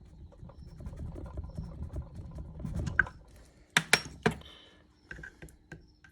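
Brake caliper and pads being handled by hand: low rubbing and scraping, then a few sharp clicks and knocks about three to four seconds in.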